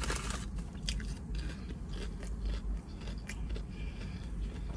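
A person chewing and crunching food close to the microphone, with irregular crisp crunches and bites.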